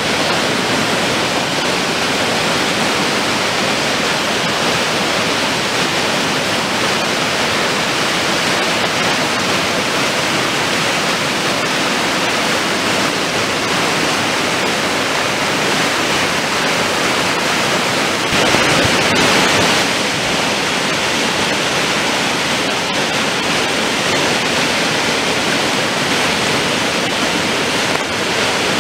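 A river in flood, its fast, muddy water rushing over the banks in a steady, loud rush. It swells briefly a little past the middle.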